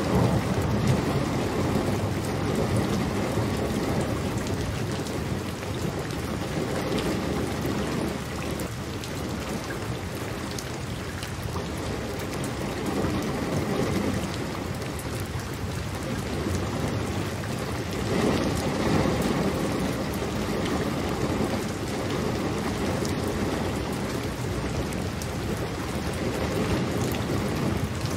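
Steady rain with a dense patter of drops, and low rumbles of distant thunder swelling up a few times.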